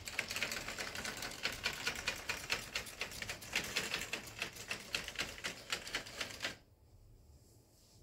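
HO scale model train running along curved track, its wheels and cars clattering in a rapid stream of clicks. The clatter cuts off suddenly about six and a half seconds in as the train comes to a stop.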